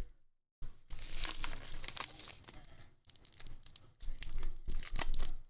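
Bubble wrap and a clear plastic sleeve crinkling and tearing as a card is pulled from a padded mailer and unwrapped. The noise starts about half a second in and grows louder again near the end.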